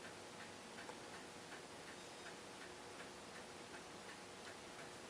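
Faint, steady ticking of a mechanical clock, about three ticks a second, over a low room hum, with one small click about a second in.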